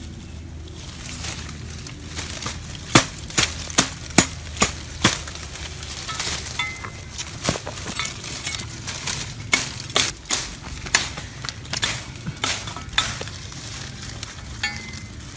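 Hands working through leafy undergrowth: leaves rustling, with an irregular string of sharp crackles and snaps from twigs and dry leaf litter starting about three seconds in.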